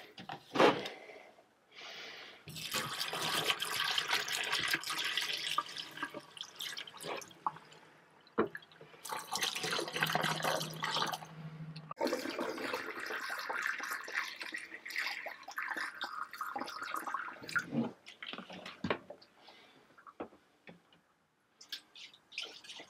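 Pink RV antifreeze poured from a plastic gallon jug down a sink drain, splashing and gurgling into the drain in several pours of a few seconds each with short pauses between. The antifreeze fills the drain P-traps to protect them from freezing.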